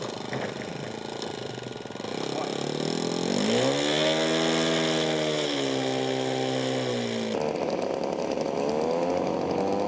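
Radio-controlled scale model airplane's small engine running, its pitch climbing steeply about three and a half seconds in and easing slightly. It breaks off abruptly and then rises again near the end.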